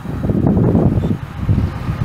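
Wind buffeting the microphone: an uneven, gusty low rumble that swells and dips.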